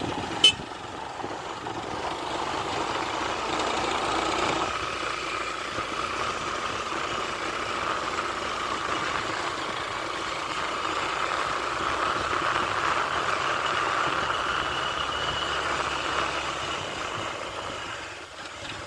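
Vehicle travelling along a bad road, giving a steady mix of engine and road noise, with one sharp click about half a second in.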